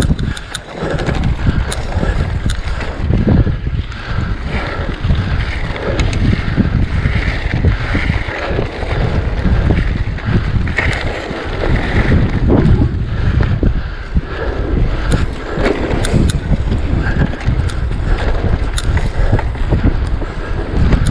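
Wind buffeting the microphone and tyre rumble from a mountain bike ridden over rough moorland single track, with scattered clicks and rattles from the bike.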